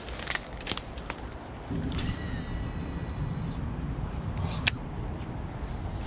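A few sharp clicks and rustles, from rod and line handling and steps in the brush on the bank, over a low rumble that swells about two seconds in.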